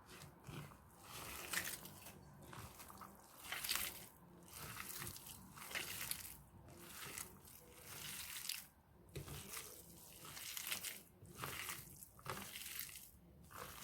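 Hands kneading and squeezing raw minced meat mixed with onion, egg yolk and spices, giving repeated wet squishing about once a second as the mince is worked until it turns sticky.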